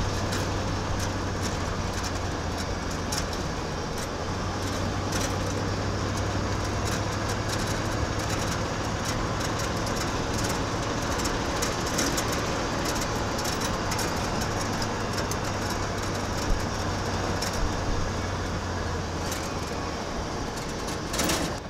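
Steady engine drone and road noise inside the cab of a 1977 Ford F-250 pickup while it is driving, with a low even hum under a rushing noise.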